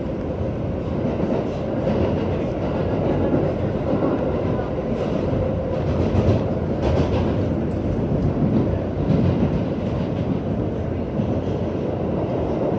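R188 subway train running along the track, heard inside the car: a steady, loud rumble of wheels and car body. A few brief sharper noises come about five and seven seconds in.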